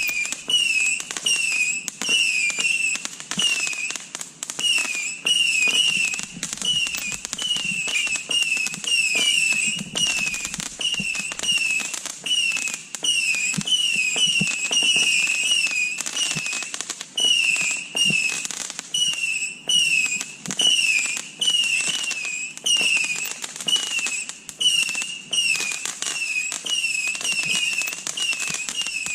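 Guy Fawkes 'Ammo Crate' 1.3G firework cake firing continuously: a rapid run of shots, each with a short whistle that dips and rises in pitch, roughly two a second, amid bangs and crackle.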